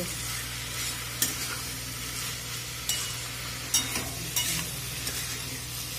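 Metal spatula stirring chopped poi saag (Malabar spinach) and pumpkin cubes frying in a metal kadhai. There is a steady sizzle, with a few sharp scrapes and taps of the spatula against the pan.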